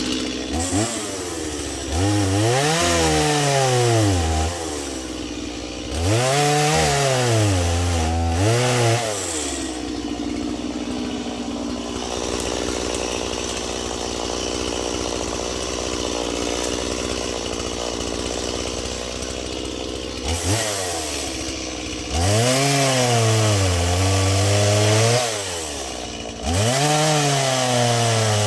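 Stihl chainsaw cutting firewood: the engine revs up several times into the wood, its pitch sagging under load and climbing again, with about ten seconds of lower running in the middle.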